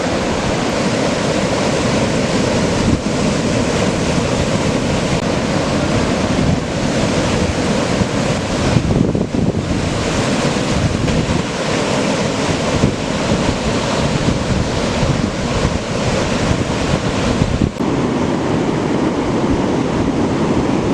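Ocean surf from a hurricane swell breaking continuously, with wind gusting on the microphone.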